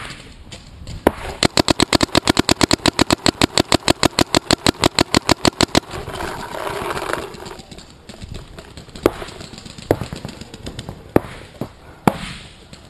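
Smart Parts Shocker RSX electronic paintball marker firing a rapid string of shots, about ten a second for some four seconds, followed later by a few scattered single shots.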